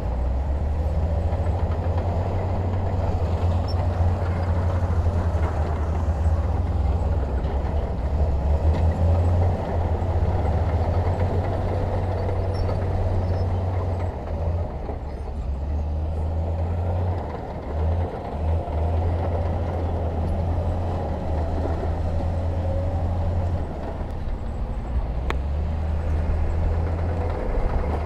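Heavy diesel engine of earthmoving machinery running steadily with a deep, low drone. The level dips briefly a few times.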